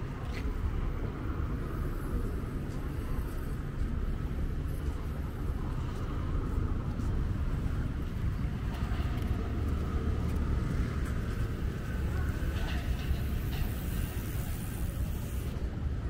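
Street traffic: a steady low rumble of passing vehicles on a city road.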